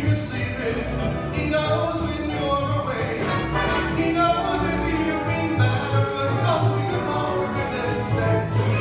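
Orchestral music with singing, likely a choral or operatic piece laid over the video.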